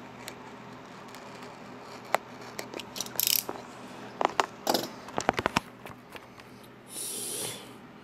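Handling of a phone's retail box and packaging: scattered clicks and taps, with a quick run of them about halfway through, and two short rustling, sliding sounds of cardboard and plastic as the phone is taken out.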